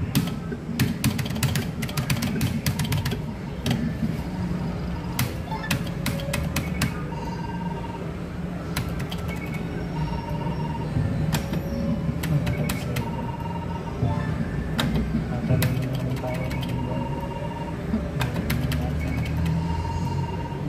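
Electronic video bingo machine game sounds: many quick clicks and several short beeps as the balls are drawn and numbers marked, over a steady low hum of the gaming hall.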